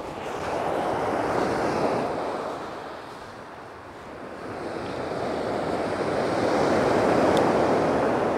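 Surf breaking on a shingle beach: two long swells of rushing wave noise, the first cresting about a second and a half in, the second building slowly to the loudest point near the end.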